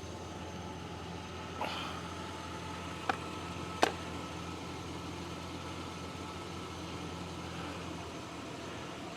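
Pickup truck engine idling steadily, freshly jump-started, with three light clicks of handling about two, three and four seconds in.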